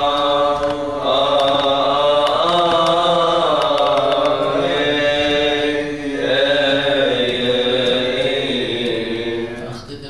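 Coptic liturgical chant sung by men: long, slowly bending melismatic notes, broken twice by short breaths and fading out near the end.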